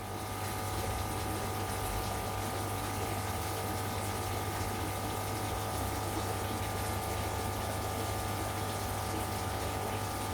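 Aquarium pump or filter running: a steady rush of water with a low hum and a few faint steady tones.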